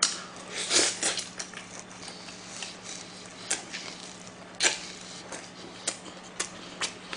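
Close-miked mouth sounds of eating thin noodles in spicy sea snail salad: slurping and wet chewing with many short clicks and smacks, thickest about a second in.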